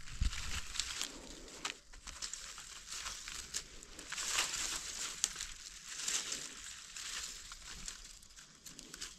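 Dry leaves and grass crackling and rustling in irregular bursts, with a few sharp snaps, as gloved hands and a small digging tool work through dry leaf litter to lift mushrooms out.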